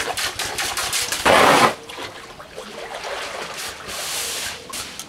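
Garden hose spraying water onto the surface of an inflatable pool, with people splashing in it. There is a loud splash a little over a second in.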